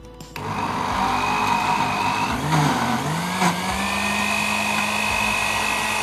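Philips countertop blender switched on and running, its motor whining as it blends a thick fish-ball paste of tongkol fish, tapioca flour and ice water. The motor's pitch sags briefly about halfway, then steadies.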